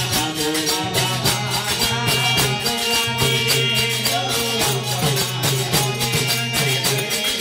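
Devotional bhajan music: a harmonium playing a melody over a steady low drone, with a hand drum and jingling percussion keeping a fast, even rhythm.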